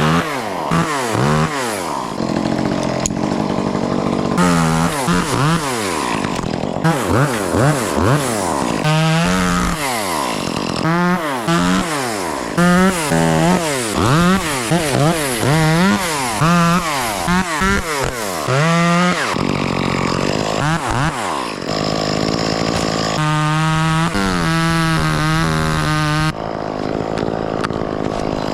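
Gas chainsaw running, its engine revving up and falling back over and over, with stretches held at a steady high pitch, as it cuts into a tree.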